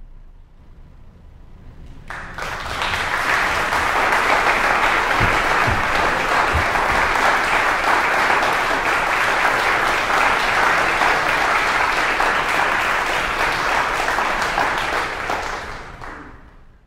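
Audience applauding, beginning suddenly about two seconds in after a brief hush, holding steady, then fading out near the end.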